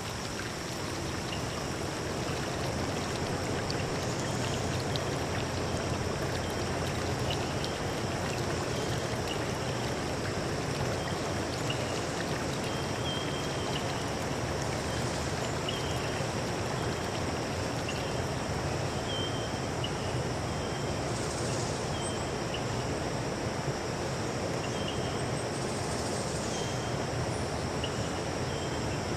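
Steady rushing of a stream, with a continuous high-pitched drone and faint short chirps here and there.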